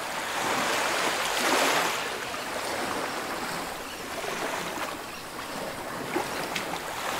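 Rushing water noise, as of water moving underwater, swelling about a second in and then easing to a steady wash, with a few faint ticks near the end.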